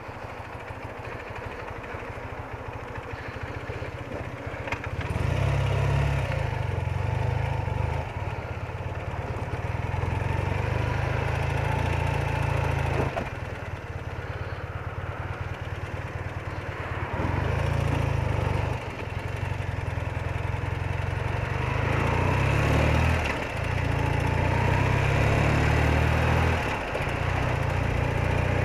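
BMW R80RT's air-cooled flat-twin engine running under way, heard from the rider's position. The engine sound builds over the first five seconds, then holds steady, dropping briefly several times.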